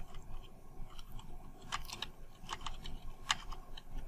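Computer keyboard typing: a handful of light keystrokes at irregular spacing.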